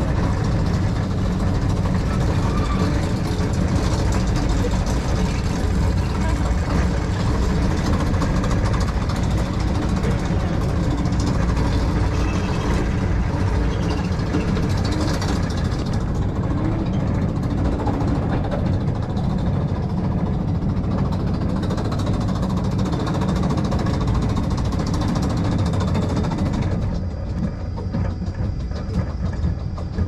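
Steep-slope monorail car running steadily along its rail, a loud continuous mechanical rumble. About 27 seconds in the noise drops off as the car slows to a stop at the station.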